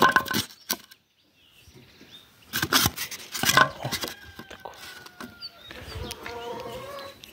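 Polystyrene foam packing being handled in a walk-behind tractor's sheet-metal battery box: a few knocks and rubbing sounds, then thin squeaks from about four seconds in as the foam rubs against the metal.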